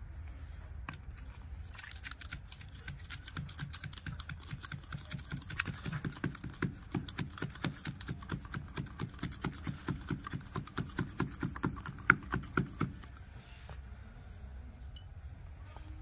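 A metal rod tamping powdered sugar-rocket fuel down into a PVC pipe motor tube: a quick run of knocks, several a second, that stops a few seconds before the end. It is the fuel being packed tight and dense.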